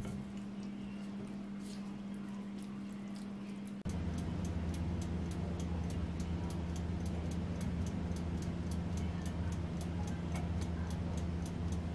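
Oven running with a steady low hum and a mechanical timer ticking about four times a second. These begin about four seconds in, after a quieter hum with faint scraping of a silicone spatula in a glass baking dish.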